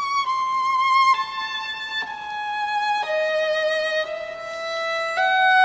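A violin playing a slow melody of long held notes with a slight vibrato, stepping down in pitch through the first three seconds and climbing back a little near the end.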